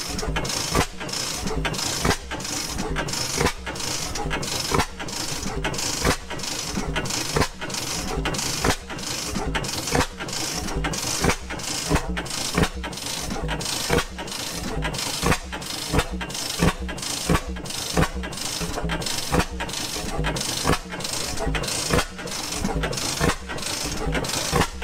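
A circa 1926 Reid Type A two-stroke oil-field engine running at slow speed. It fires with sharp, regular exhaust beats about once every second to second and a half, with lighter mechanical knocks between.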